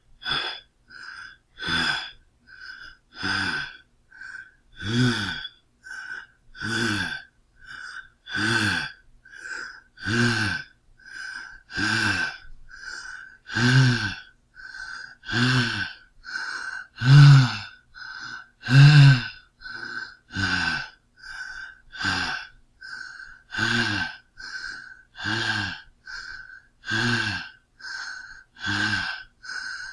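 A man breathing hard, out of breath, in a steady rhythm: a quiet breath alternates with a louder, voiced, gasping one, about one pair every second and a half to two seconds. The breaths are loudest a little past the middle.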